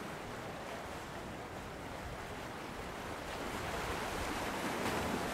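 Sea surf washing onto the shore, a steady rush that swells louder near the end.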